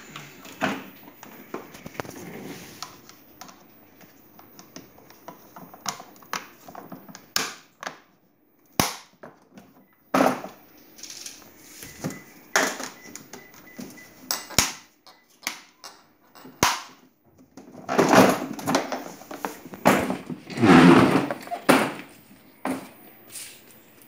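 Hard plastic clicking and knocking as chrome plastic hubcaps are handled and pressed onto a toy ride-on car's plastic wheels, scattered irregularly. Two longer stretches of crinkling plastic wrapping near the end are the loudest part.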